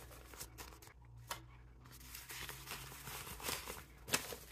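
Paper banknotes rustling softly as they are handled and sorted, with a few light taps, one about a second in and another near the end.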